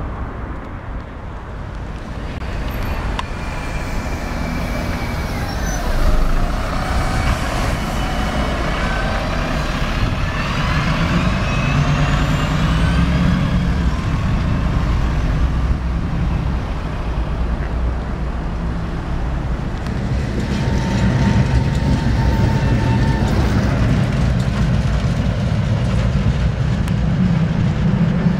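Road traffic passing: a diesel bus and cars running. The engine rumble grows stronger about ten seconds in, with several rising whines around then.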